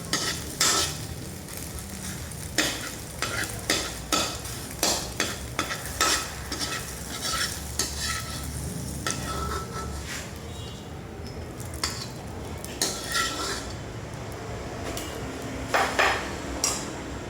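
A spatula scraping and clattering against a pan while fried rice is stirred and tossed, over the sizzle of frying. The strikes come irregularly and thin out in the last several seconds.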